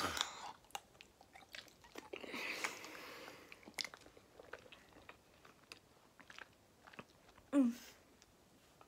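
A person eating fruit jelly straight from the pot without a spoon: wet chewing and mouth noises with scattered small clicks, and a longer noisy stretch about two seconds in. A short grunt comes near the end.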